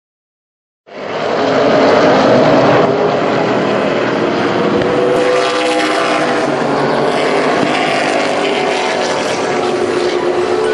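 Race car engines running at speed on an oval track, a dense loud drone whose pitch rises and falls as the cars pass, starting about a second in.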